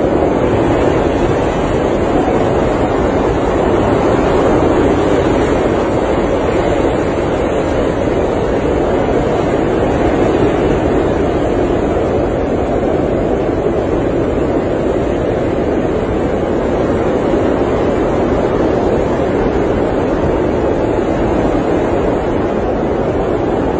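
Blizzard wind blowing steadily against an RV, heard from inside: a dense rushing noise that swells a little now and then.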